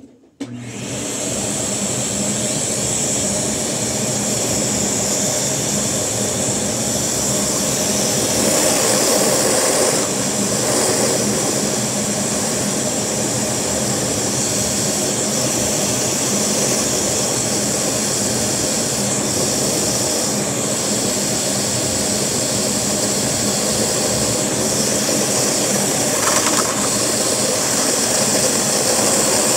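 Vacuum cleaner motor switched on about half a second in and running steadily with a high whine, its suction driving a Lego vacuum engine at a very low idle.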